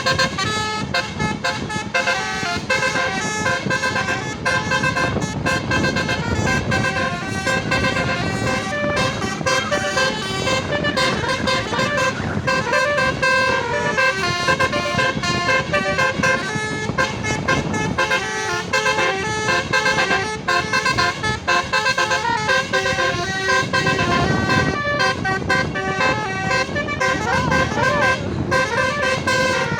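A bus's Basuri telolet horn, a set of several air-horn trumpets, playing a continuous melody of short notes that change pitch in quick succession.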